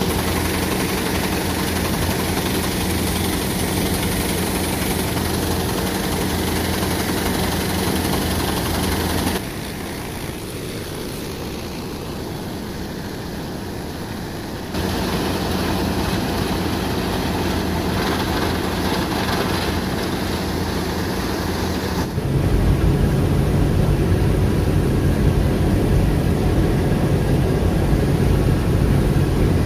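Deutz-Fahr M 2385 combine harvester running steadily while harvesting barley, a constant engine and machinery drone. The level drops suddenly about nine seconds in, comes back about fifteen seconds in, and is louder with a deeper drone from about twenty-two seconds on.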